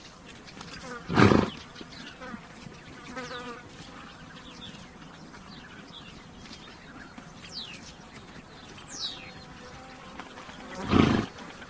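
A horse snorts twice, short hard blows of breath about a second in and again near the end, with flies buzzing around it and birds giving a few short high chirps in between.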